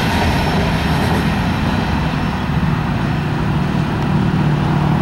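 Freight train's covered hopper cars rolling past: a steady, loud rumble of wheels on rail. A steady low hum grows stronger in the second half.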